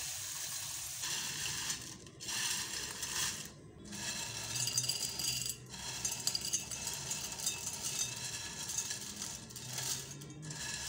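Hot oil sizzling around thin potato straws in the pan at first, then crisp fried potato straws rattling and rustling as they are tipped from a plate into a bowl; a steady crackly hiss with a few short breaks.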